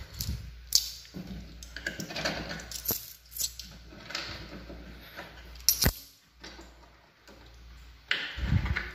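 Metal coins clinking and rattling in scattered, irregular clicks: the 5-peso change from the vending machine's coin dispenser being handled. A louder knock comes near the end.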